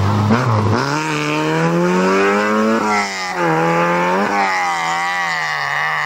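Fiat Uno rally car accelerating hard away, its engine revving up through the gears. The revs dip briefly just under a second in, then climb, with upshifts about three and four and a half seconds in.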